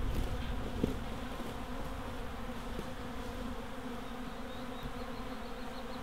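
A swarm of honey bees flying around, making a steady, even buzzing hum of many wings.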